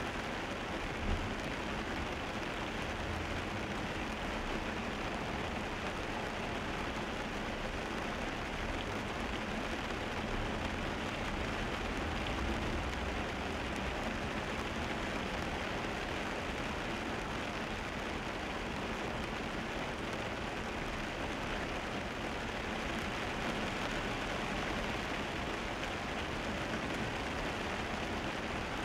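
Steady hiss of a car driving in the rain, heard from inside the cabin: tyres on wet asphalt and rain on the car, with one small bump about a second in.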